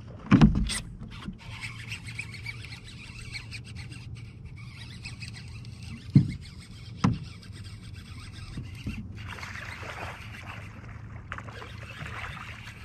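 A few sharp knocks on a bass boat's deck, the loudest about half a second in and two more around six and seven seconds in. Near the end comes a stretch of hissing water splashing as a hooked bass thrashes at the surface.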